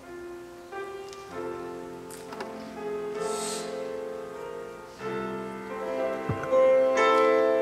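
A small group of mixed voices singing a hymn together, held notes changing every second or so and swelling louder near the end, with piano accompaniment.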